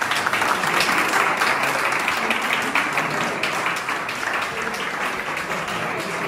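Small audience clapping and applauding.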